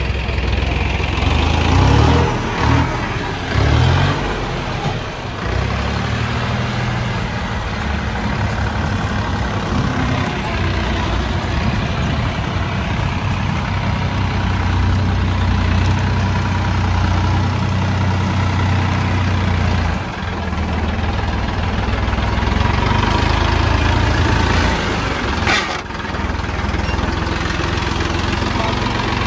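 Tractor diesel engine running, rising and falling in short revs over the first few seconds, then running steadily.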